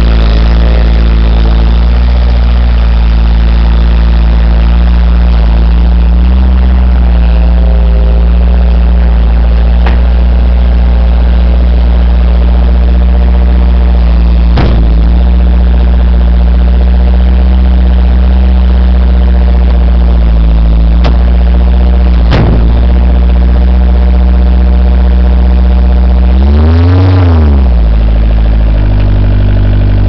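Bobcat 743 skid-steer loader's engine running loud and steady while the machine moves about, with two sharp clunks around the middle. Near the end the engine revs up briefly and drops back.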